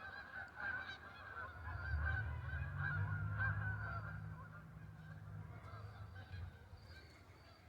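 A flock of Canada geese honking and calling, the calls fading out after about four seconds. A low hum runs underneath from about two seconds in until shortly before the end.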